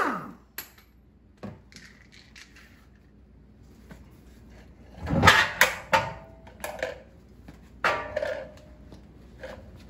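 An air impact wrench winds down at the very start, its whine falling away. Then a truck wheel and tire are worked off the hub: a few scattered knocks, then a cluster of clunks and metal clinks, some briefly ringing, about five to seven seconds in and once more near eight seconds.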